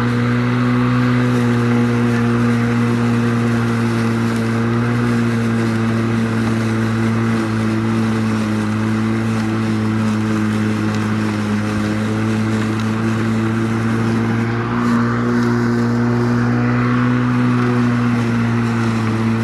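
Viking MA 400 battery-powered lawn mower's electric motor and blade running at full speed while mowing grass that is too tall for it, a loud, steady, even hum.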